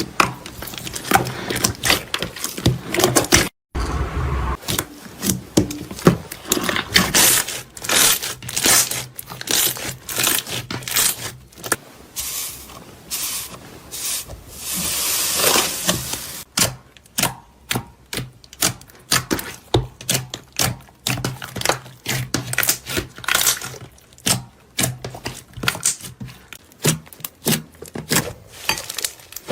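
Slime being squeezed and worked by hand close to the microphone, giving quick, irregular sticky crackles and pops.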